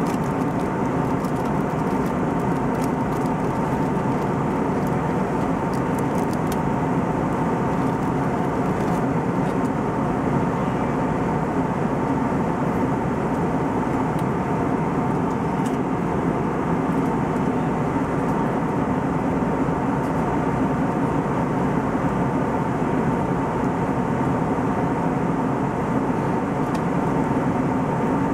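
Steady in-flight cabin noise of an Airbus A320-251N: a constant rush of airflow with the even hum of its CFM LEAP-1A engines.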